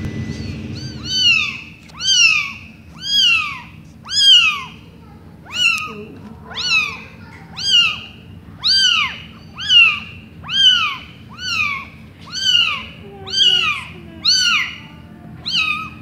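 A newborn kitten mewing over and over, about once a second, each mew a short high cry that rises and then falls in pitch. A low steady hum runs underneath.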